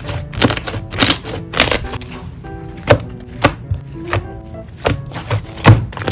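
Homemade egg slime being squeezed and poked, giving a series of sharp clicks and pops at irregular spacing, over background music.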